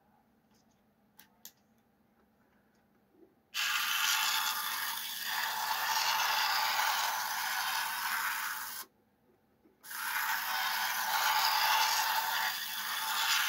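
The small electric motor and gear drive of a model railway tube-stock motor car running on test track, a rattly, hissing whirr. It runs for about five seconds, stops for about a second, then runs again for about four seconds; a couple of faint clicks come before the first run.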